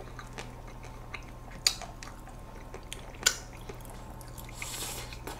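Close-miked eating of ice cream with a metal spoon: two sharp clicks about a second and a half apart, a few soft ticks, then a short hissing slurp near the end as a big spoonful is taken into the mouth.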